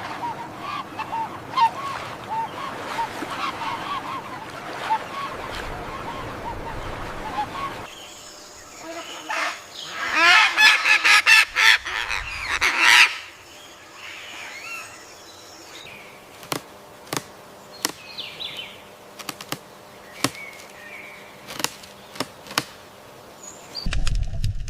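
Bird calls: a run of short, repeated chirping calls, then a burst of loud, honking calls about eight seconds in, followed by scattered sharp clicks.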